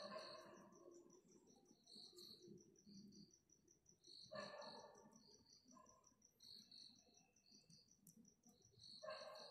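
Faint cricket chirping: an even, high-pitched pulsing at about five pulses a second. A short, louder call from another animal comes three times, at the start, about halfway through and near the end.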